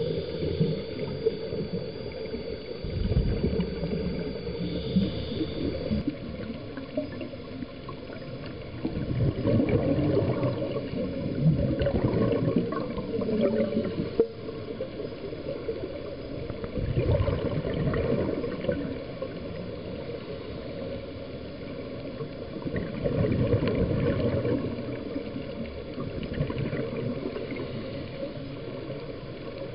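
Underwater water noise with surges of bubbling every several seconds, like a scuba diver's exhaled breath from a regulator. A faint, high, wavering whistle runs through the first several seconds.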